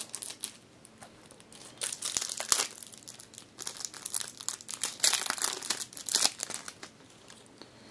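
Packaging around a bundle of Pokémon trading cards crinkling and tearing as it is opened by hand, in irregular bursts of crackles from about two seconds in until about six seconds in.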